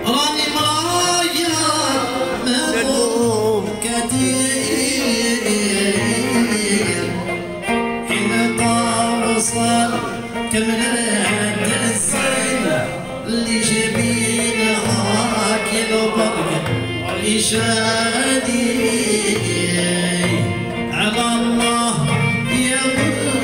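Live Arabic popular music played loud: a melody line over a steady, regular drum beat, with no sung words picked up.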